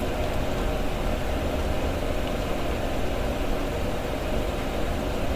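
Steady low hum with a faint hiss, unchanging throughout: background noise with nothing mechanical starting or stopping.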